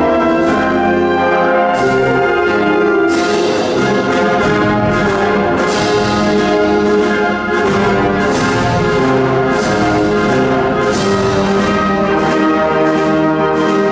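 Symphonic wind band playing a Spanish processional march (marcha procesional), with sustained brass chords. From about three seconds in, strokes on a steady slow beat join the music.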